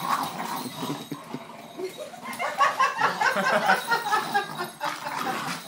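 A big dog and a small dog play-fighting, with a quick run of short growling noises in the second half.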